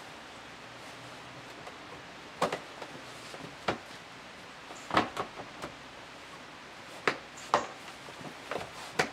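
Hard plastic clicks and knocks from the Keter High Store's Duotech roof pieces as a side piece is clipped over the edge of the roof panel, several separate knocks spaced about a second or more apart.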